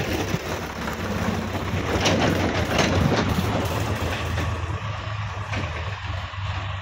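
Diesel tractor engine running steadily under load as it tows a loaded trolley past over a rough dirt track, with the trolley rattling and clattering. The clatter is loudest about two to three seconds in, then eases a little as the tractor draws away.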